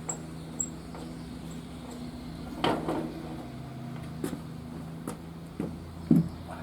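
Scattered knocks and clunks of hot metal parts and tools being handled, the loudest about two and a half seconds in and again near the end, over a steady low hum.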